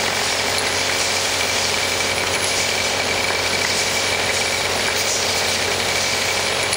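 Vibratory parts feeder running, its vibrating trays shaking a mass of ceramic tiles in a steady, dense clatter over a low hum as the tiles are separated and oriented into six lanes.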